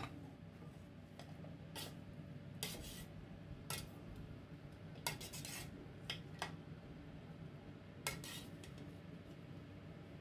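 A metal spoon or utensil clinking and scraping against a cooking pot or dish, in short, irregular strokes over a faint steady low hum.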